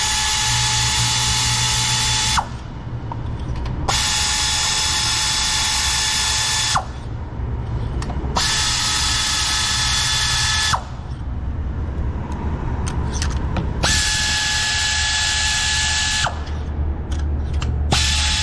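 Cordless power tool whirring with a steady whine in four runs of two to three seconds each, separated by short pauses with light clicks, as the spark plugs are removed.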